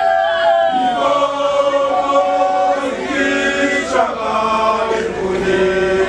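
A group of men's voices chanting a traditional song together, several voices holding long notes at different pitches.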